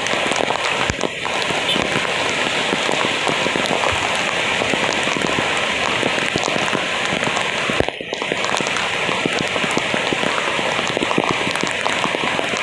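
Rain falling steadily in a dense patter of drops, with a single brief bump about eight seconds in.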